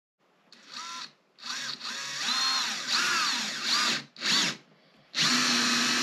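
Cordless drill driving wide-head screws through a swivel caster's mounting plate, running in four bursts, one short, one long, one brief and one about a second long near the end, with the motor's pitch rising and falling.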